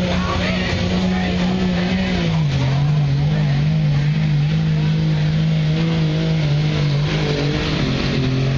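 Pickup truck's engine held at high revs under full load as it drags a weight-transfer pulling sled. Its pitch drops about two seconds in, holds steady, and climbs again near the end.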